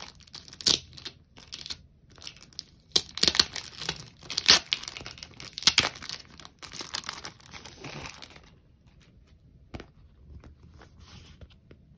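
Sticker packaging being handled and opened: crinkling and rustling with sharp crackles and tearing sounds. It goes quieter about eight seconds in, leaving faint handling and a single click.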